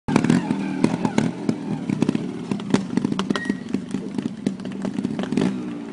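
Trials motorcycle engine running with uneven throttle blips as the bike climbs over rock steps, with frequent sharp knocks and clatter of the bike against the rocks.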